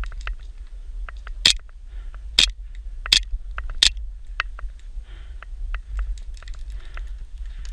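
Airsoft gun firing four single shots, spaced just under a second apart, with fainter clicks and rustling of gear in between.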